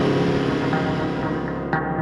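Background music: sustained, slowly fading chords, with a new chord coming in sharply near the end.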